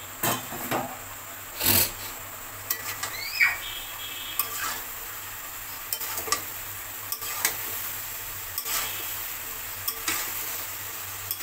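A spatula scraping and knocking against a metal kadai as a mixed vegetable curry is stirred, with scattered clanks throughout and the curry sizzling steadily underneath.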